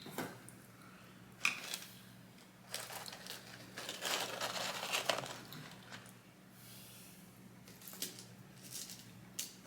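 Paper fast-food packaging crinkling and rustling as it is handled, in irregular bursts with the longest stretch about three to five seconds in, and a few small clicks near the end.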